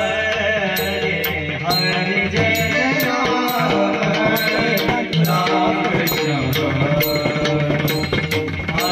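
Bhajan music: pakhawaj drumming under sustained melodic chords, with a steady beat of sharp metallic strikes, about two to three a second.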